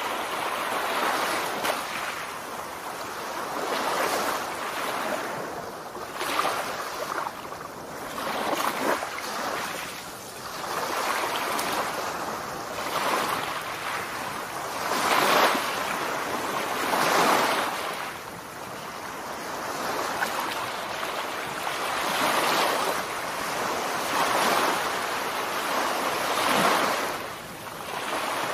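Surf washing on a shallow beach with wind on the microphone: a continuous rushing that swells and eases every few seconds.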